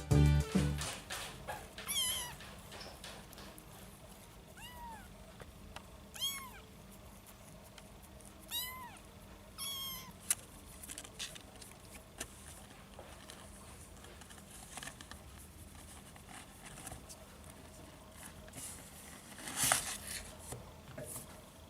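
Kitten mewing: five short, high calls that rise and fall, spread over the first ten seconds, followed by faint rustling and small clicks, with a brief louder rustle near the end.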